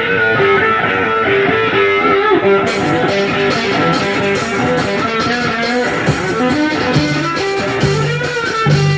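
Rock band playing an instrumental passage: electric guitar over bass and drums.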